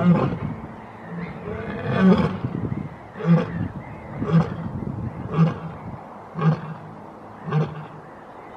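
A lioness roaring in a series of short grunting calls, about one a second, growing slightly weaker toward the end.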